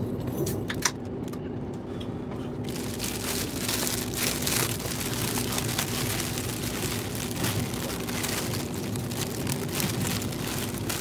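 Thin plastic bags crinkling and rustling as hands unwrap leaf-wrapped sasa dango, much denser from about three seconds in. Under it runs the steady rumble and hum of a Shinkansen train in motion, heard from inside the passenger cabin.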